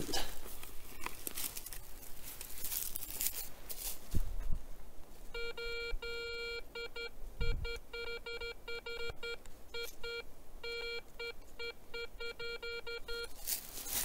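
Garrett ACE 250 metal detector beeping: a run of short, identical electronic beeps in quick irregular groups, starting about five seconds in after some rustling. It is a persistent target signal that keeps sounding, which the detectorist cannot make sense of.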